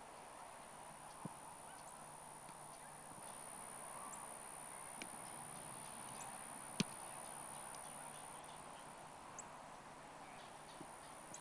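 Faint open-air ambience with a steady high whine, broken by a sharp single thud about seven seconds in: a football punted off the foot, with a couple of softer knocks before it.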